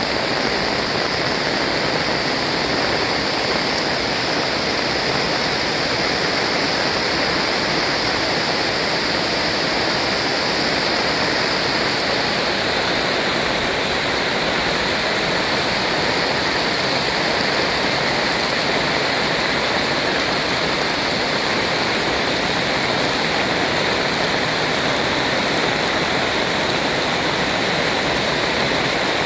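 Heavy rain pouring steadily, an even unbroken rush of water.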